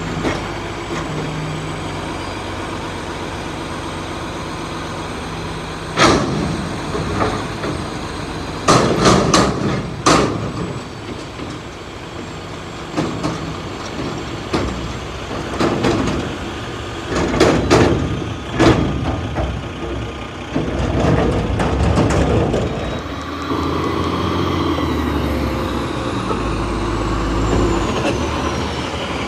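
Diesel front-loader garbage truck running while its hydraulic forks hold a dumpster overhead and shake it empty, with loud metal bangs as the dumpster knocks against the truck, in clusters about six, nine, sixteen and eighteen seconds in. Near the end the engine grows louder and steadier as the truck pulls away.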